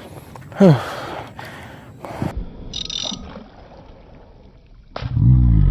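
A man's groaning exclamation, falling in pitch, about half a second in, then faint handling noises and a short hiss. A loud, low, humming groan follows near the end.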